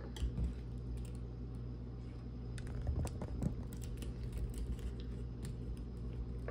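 Small scattered plastic clicks and taps from fingers handling and repositioning a plastic action figure on its stand on a tabletop, a cluster about half a second in and another around three seconds in, over a steady low hum.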